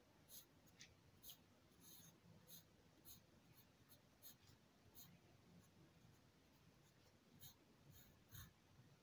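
Pencil lettering on drawing paper: a string of short, faint pencil strokes, one or two a second and unevenly spaced, as capital letters are written by hand.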